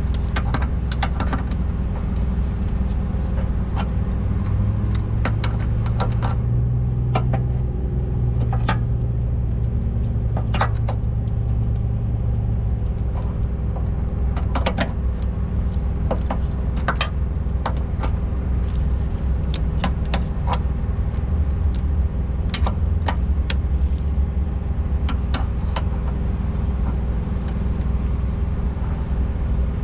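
A heavy truck's diesel engine idling steadily, with scattered sharp metallic clinks at irregular intervals from a hand wrench working on the truck's fittings.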